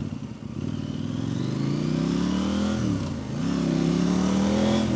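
KTM 890 Duke R's parallel-twin engine accelerating under the rider, its pitch rising, dipping briefly about three seconds in, then rising again.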